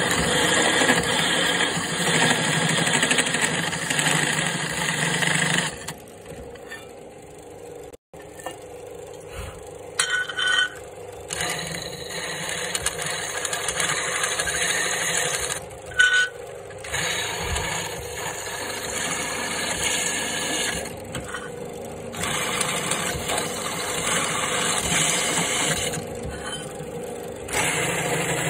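Drill press running with a step drill bit cutting through a die-cast aluminium guitar-pedal enclosure, a steady machine noise with a quieter stretch about a quarter of the way in and a few short louder bursts.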